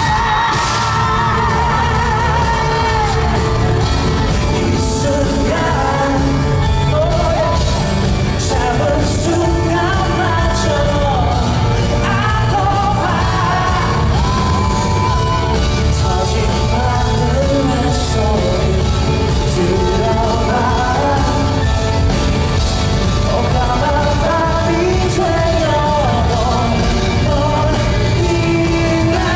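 Live pop-rock band with drums playing while a male singer sings into a microphone, with fans yelling and cheering over the music.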